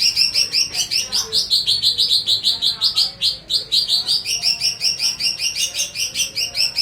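Pet songbird singing a fast, unbroken string of high chirps, about nine a second, with the pitch dipping slightly in the middle stretch.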